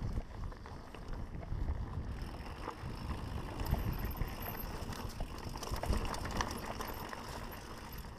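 Mountain bike riding fast downhill over a dirt singletrack: tyres running over dirt and small rocks, with the frame and parts rattling and many small clicks and knocks. A steady low rumble of wind and vibration on the microphone runs under it.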